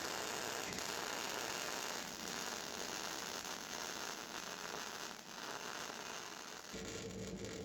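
MIG welding arc, a steady crackling hiss of a continuous bead being run. About 6.7 s in it stops and a low hum takes over.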